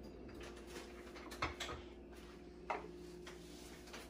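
A few short, sharp clicks and knocks of kitchen handling, about three of them plain, over a faint steady hum.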